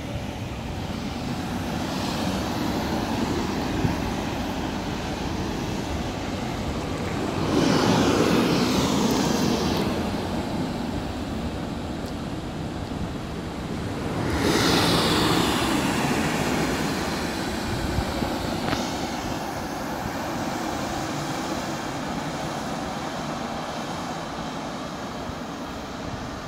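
Double-deck passenger train running past below, a steady rumble of wheels on the rails, with two louder swells about eight and fifteen seconds in.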